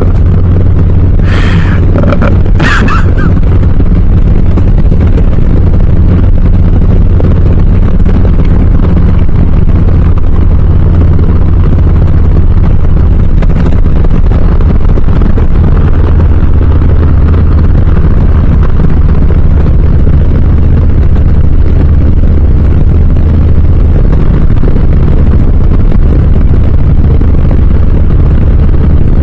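Harley-Davidson Low Rider S's Milwaukee-Eight 117 V-twin running through Cobra RPT slip-on exhausts, loud and low at a steady, even speed. Two brief sharp noises come near the start.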